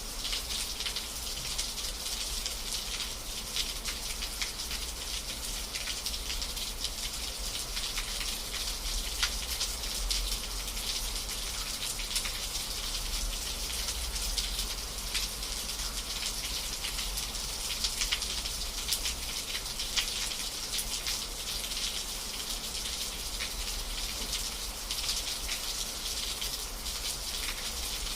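Steady rain falling, with a dense patter of individual drops on a surface and a low constant rumble underneath.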